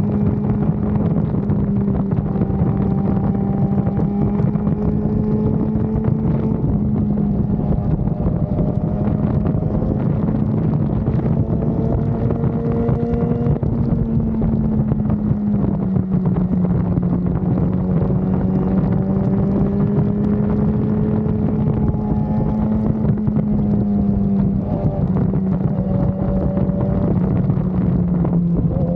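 BMW S1000RR inline-four engine at a steady cruise, its pitch easing down and back up a couple of times as the throttle changes, with wind rushing over the microphone.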